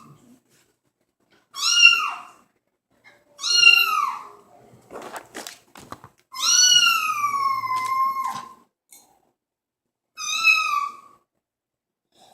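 Recorded cat meows played from a phone through a sound bar: four meows, the third long and drawn out, with a few sharp clicks between the second and third.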